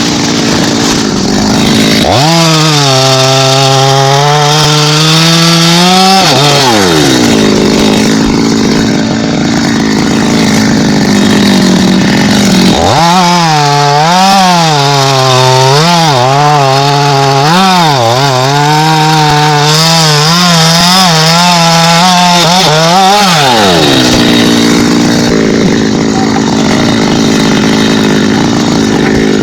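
Two-stroke chainsaw cutting into thambakam wood in two long runs at full throttle, the engine note dipping and wavering under load. Between the runs the saw drops back to idle.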